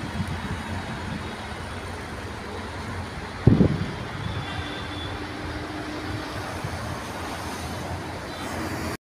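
Steady road traffic rumble with wind buffeting the microphone, and one short, loud low thump about three and a half seconds in.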